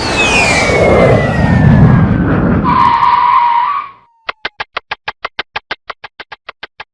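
Comedy sound effects: a loud rushing noise with a whistle falling in pitch, ending in a short held tone, then after a brief pause a rapid run of short ticks, about eight a second.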